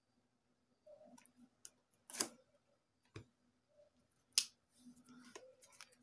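Hands handling a small plastic-wrapped cardboard box: scattered light clicks, taps and soft rustles, with a sharper click about two seconds in and the loudest about four seconds in.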